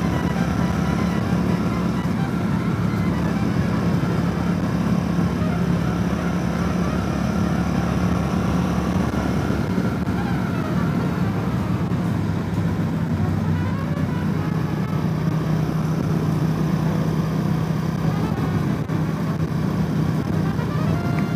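Motorcycle engine running steadily at highway cruising speed, a constant low drone, under a steady rush of wind and road noise.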